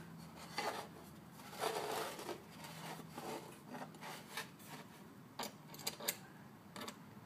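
Workshop handling sounds: an aluminum plate rubbing and sliding on a wooden board, with several sharp small metal clicks near the end as a tap and hand tap wrench are handled.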